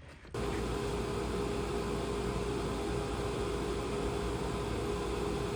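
Steady mechanical hum and hiss with one steady tone, starting abruptly just after the start and holding unchanged.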